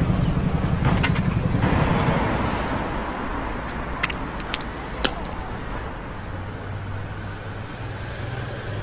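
Motorcycle engine running, dying away about two seconds in. Then steady street traffic noise with a few sharp clicks.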